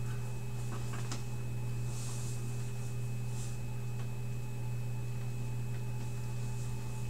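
Steady low electrical hum with a faint high whine above it, and a few faint ticks, the clearest about a second in.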